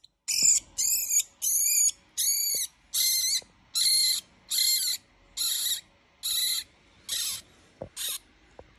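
Rat squealing in distress while being constricted by a snake: a series of about eleven high shrill squeals, roughly one every 0.8 seconds, which grow shorter and weaker near the end.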